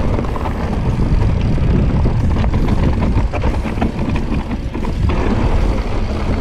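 Mountain bike riding over a dirt and stony trail, picked up by a camera on the bike: a steady rush of wind on the microphone with the tyres rolling over loose stones, and many small clicks and rattles from the bike.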